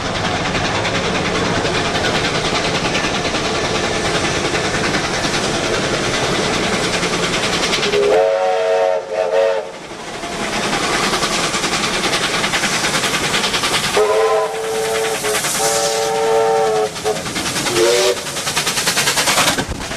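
Steam train running with a steady rumble of wheels on rails, its steam whistle blowing several times: a blast about eight seconds in, a longer broken series from about fourteen to seventeen seconds, and a short toot about eighteen seconds in.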